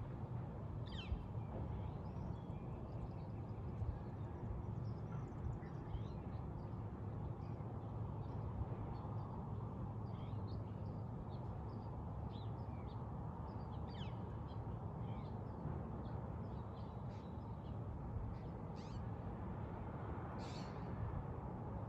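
Birds calling at dawn: scattered short chirps and calls, a few louder, harsher ones standing out, the strongest near the end. A steady low rumble of outdoor background noise runs underneath.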